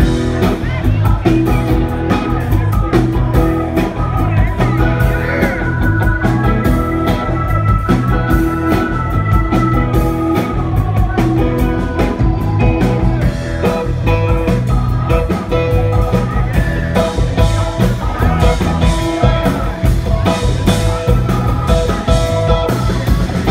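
Live rock band playing a song: drum kit keeping a steady beat under acoustic guitar, bass guitar and keyboards, with long held notes above them.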